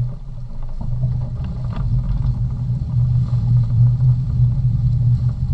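Boat engine running with a steady low drone, growing a little louder about two seconds in.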